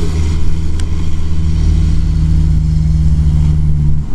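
Subaru Forester's flat-four boxer engine pulling steadily under load as the SUV climbs a steep, loose sandy slope.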